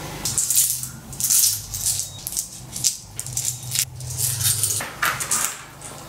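Metal coin-cell lithium batteries (CR2032) clinking and scraping against each other as fingers stir them on a wooden table: an irregular run of sharp clicks and short scrapes, with a low steady hum underneath.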